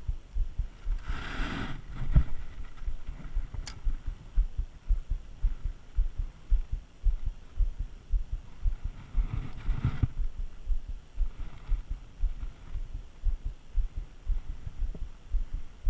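Low, irregular thumping on a kayak-mounted action camera's microphone, the buffeting of wind or small waves against the hull, with two brief rushing swells about a second in and near ten seconds.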